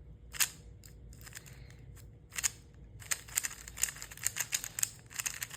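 Dayan Guhong M Pro 3x3 speed cube being turned by hand: a couple of single clicking turns, then a quick run of clicking turns from about three seconds in.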